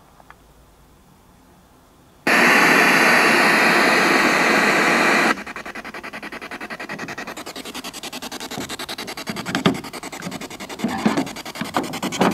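Ghost-hunting spirit box (radio sweep device) switched on about two seconds in: a loud blast of radio static for about three seconds, then quieter static chopped into rapid pulses as it sweeps through radio stations, with short snatches of sound breaking through near the end.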